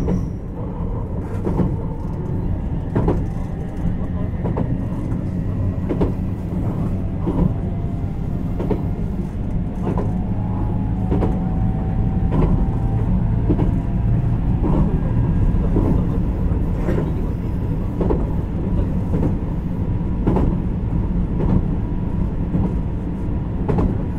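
Running sound of a JR Kyushu 817-series electric motor car heard aboard: a steady rumble of wheels on rail, with a sharp click from the rail joints about every second and a half.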